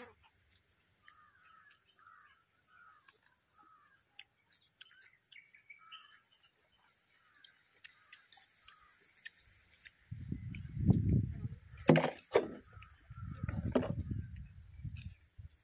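Crows cawing repeatedly over a steady high hiss. In the second half, low rumbling handling bumps and two sharp knocks close together take over and are the loudest sounds.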